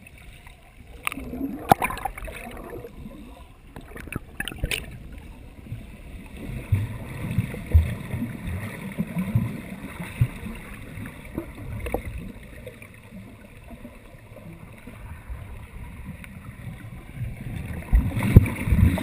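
Muffled underwater sound heard through an action camera's waterproof housing: an irregular low rumble of moving water, with a few sharp clicks and a louder stretch near the end.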